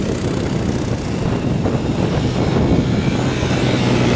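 Engines of a group of off-road vehicles driving past in a line across sand, a steady drone.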